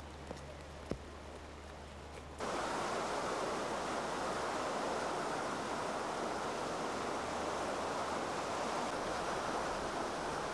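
Flood-swollen Vltava river water rushing steadily. The rush cuts in abruptly about two seconds in, after a quieter stretch with a low hum and a few faint clicks.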